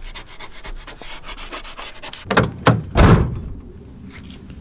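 Rapid scratchy rubbing and crinkling of vinyl livery and its backing paper being worked onto a car's plastic side skirt, then a few loud thumps about two and a half to three seconds in.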